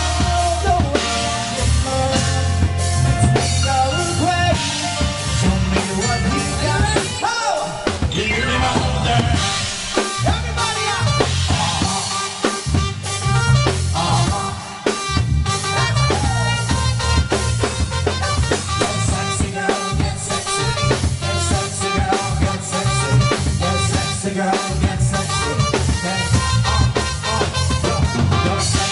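Live band playing upbeat dance music: keyboard over a steady drum beat.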